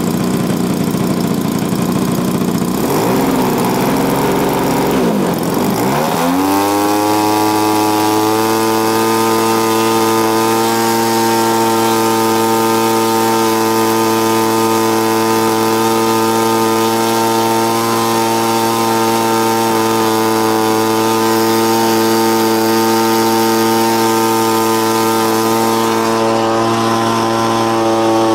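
Engine of a quarter-scale radio-controlled Extra 300S model aircraft running on the ground. It runs low and uneven at first, then about six seconds in it is throttled up with a quick rise in pitch and holds a steady high-speed run.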